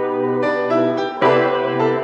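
Background music led by keyboard chords, a new chord struck every half second or so.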